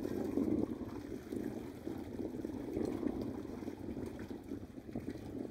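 Wind buffeting the microphone outdoors: a steady, fluctuating rush with no distinct event in it.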